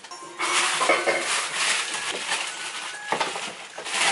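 Groceries being handled on a kitchen counter: continuous rustling and crinkling, with a few light knocks near the end.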